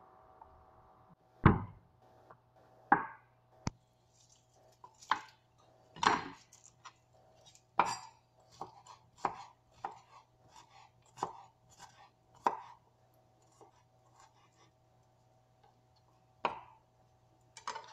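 Kitchen knife chopping on a wooden cutting board: irregular sharp knocks, some loud and some light, with short pauses between bursts, over a faint steady hum.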